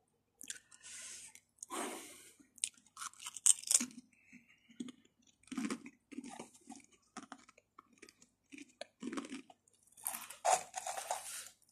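A person chewing crunchy black ghost chili pepper crisps: a run of irregular crunches with short pauses between them.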